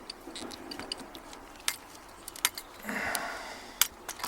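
Small metallic clicks and a short scrape as an Allen key works at a stubborn grub screw in a steel padlock body, the screw held fast by thread locker.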